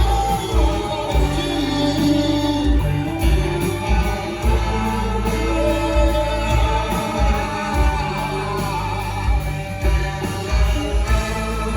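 Live rock and soul band playing loudly, with singing and backing voices over bass and a steady drum beat; the band is filled out by a string quartet and a brass section.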